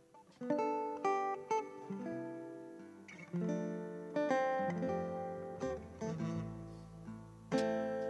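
Metal-bodied resonator guitar played fingerstyle: a phrase of single plucked notes and chords, each ringing out and fading, with a strong chord near the end.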